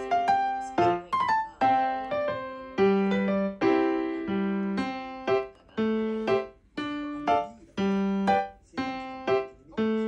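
Light background piano music: a melody of single struck notes, each fading after it is played.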